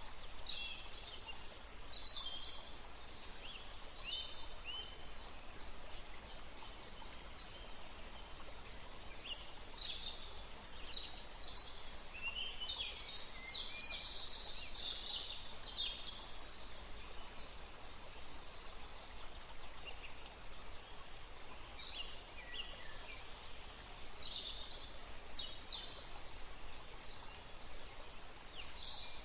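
Wild birds chirping in quick high calls, coming in three spells with quieter stretches between, over a steady hiss of flowing river water.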